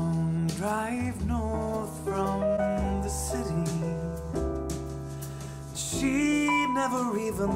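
A song with piano and singing, played back through bookshelf speakers and picked up by a microphone in the room. In the first few seconds the playback switches from the Edifier S1000DB to the Swans M200 MKIII speakers.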